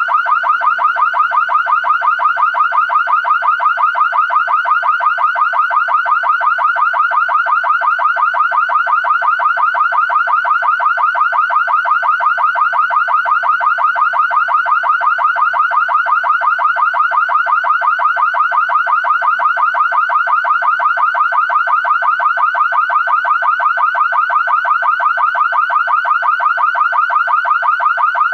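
Car alarm siren sounding without pause: a high electronic tone warbling rapidly and evenly, several pulses a second.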